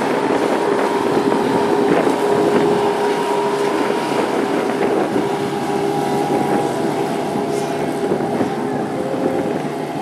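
5 HP Suzuki outboard motor running at speed, a steady engine tone, with wind noise on the microphone.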